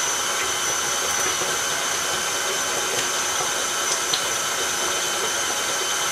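KitchenAid Classic tilt-head stand mixer running steadily at low speed, its beater stirring softened butter in a stainless steel bowl: an even whirring with a constant high motor tone. A couple of faint clicks come about four seconds in.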